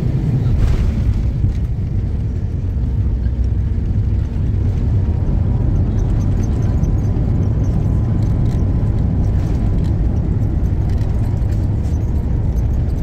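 Steady low rumble inside the cabin of a jet airliner taxiing on the ground. A faint steady whine joins about five seconds in.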